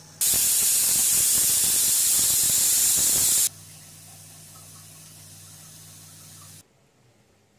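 Aluminium pressure cooker whistling: steam hisses out loudly from under the weight on the lid for about three seconds, a sign it has come up to pressure on high flame, then cuts off abruptly. A low steady hum follows.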